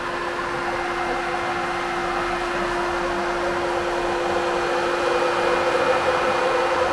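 Electric radiator cooling fan running behind an aluminium radiator, a steady whir with a held hum that grows a little louder in the second half. It is running on a newly made wiring loom, showing that the fan circuit works.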